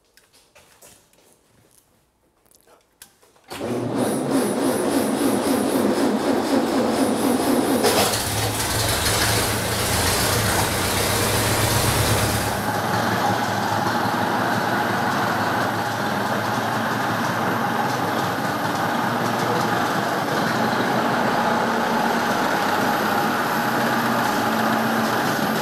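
The 1.9-litre four-cylinder engine of a 1911 Opel 8/30 race car catches on a second start attempt about three and a half seconds in and runs loudly. It sounds deeper and stronger for a few seconds, then settles into a steady run about twelve seconds in.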